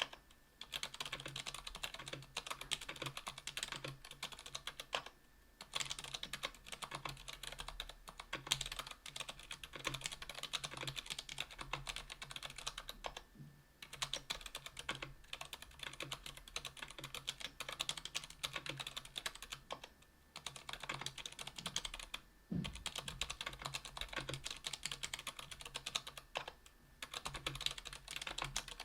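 Steady fast typing on a KBDfans Tofu 60% aluminium keyboard with stock Kailh BOX Silent Brown tactile switches (60 g), an aluminium plate and GMK keycaps. The keystrokes come in quick runs, broken by a few brief pauses.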